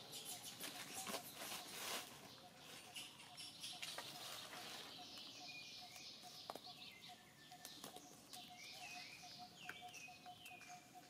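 Faint outdoor ambience: a small bird chirping repeatedly in short falling notes from about halfway through, over a faint steady tone, with a few light clicks near the start.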